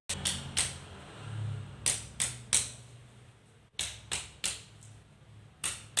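Cupped-hand clapping on a person's back during chest physiotherapy: about ten sharp slaps in quick groups of two or three while the patient breathes out.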